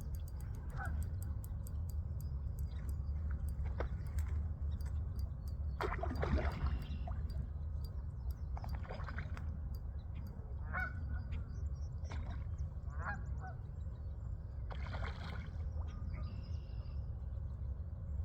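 Geese honking: a few short, scattered calls over a steady low rumble.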